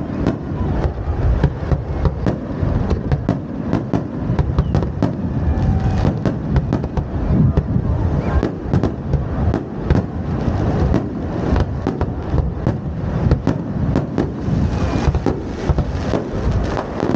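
Aerial fireworks bursting in a rapid, unbroken barrage: many sharp bangs and pops over a constant heavy low rumble.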